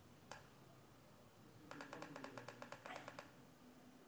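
Faint computer-mouse clicks: a single click, then a quick, evenly spaced run of scroll-wheel ticks about a second and a half in, zooming out the chart.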